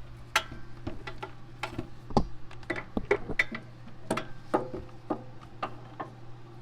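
Metal hand tools clicking and clinking irregularly against each other and the brake parts, some clinks ringing briefly, over a steady low hum.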